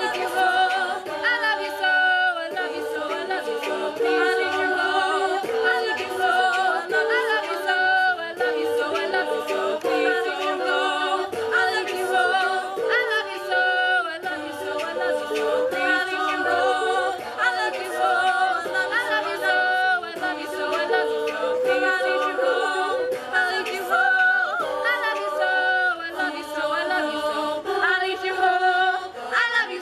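Women's a cappella group singing a song in close harmony, several voices and no instruments.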